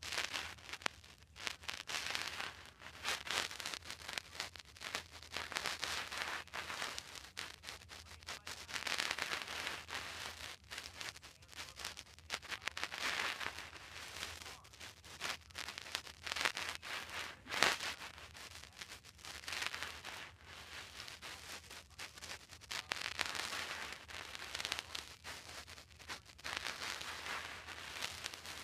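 Microphone handling noise: dense, irregular crackling and rustling as the hand-held recording device is gripped and shifted. It swells and fades every few seconds over a faint low hum.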